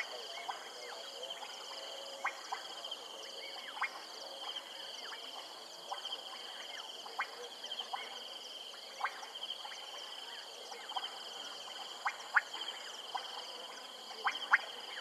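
A frog chorus: short, sharp clicking calls come irregularly, about one every second, over a steady high pulsing trill.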